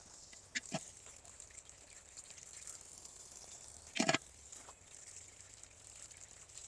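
Raw chicken pieces being rinsed under a garden hose in a clay bowl: faint water and a few short splashes and handling sounds, the loudest about four seconds in.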